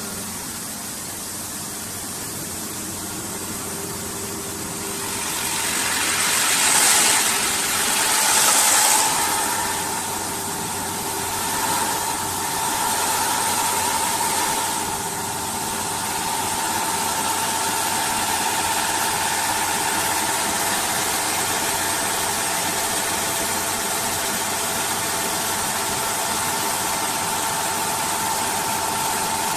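CNC wood turning and sanding lathe running: a steady machine hum while a spinning sanding wheel works a turned wooden spindle. There are louder hissing swells about six to nine seconds in, and a steady whine joins from about eight seconds on.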